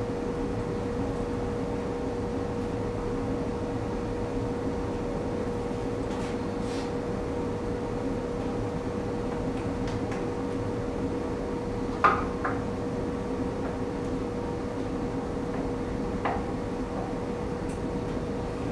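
A few light clicks and knocks as parts are handled on a Porsche Cayman S engine, the sharpest about twelve seconds in, over a steady workshop hum with a faint steady tone.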